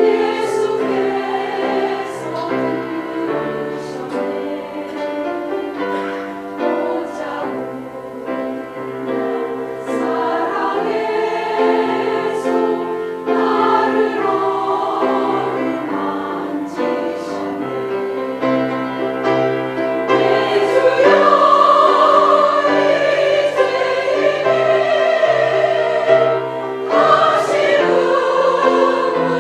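Choir singing a Christian praise hymn, with sustained sung notes that swell and change pitch phrase by phrase.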